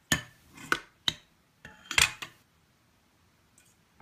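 Metal spoon clinking and scraping against a stainless steel mixing bowl as honey is spooned in: a handful of sharp clinks in the first two and a half seconds, the loudest near two seconds in, with the bowl ringing briefly after it.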